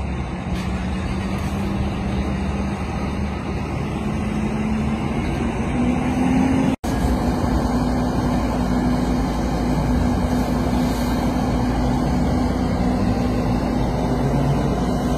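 A fire engine's motor running with a steady hum over a constant rushing hiss while a burning minivan is hosed down. The hum creeps up in pitch in the first half, and the sound drops out for an instant about halfway through before carrying on.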